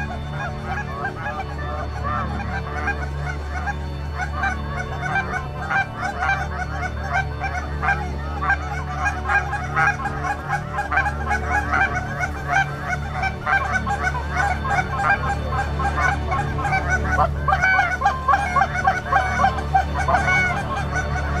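A large flock of geese calling, with many short honks overlapping in a continuous din, over a steady low rumble.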